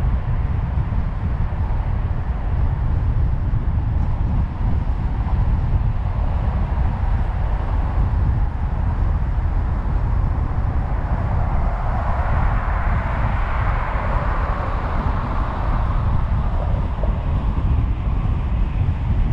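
Steady low rumble of wind and road noise from a moving car, with a rushing hiss that swells and fades a little past the middle.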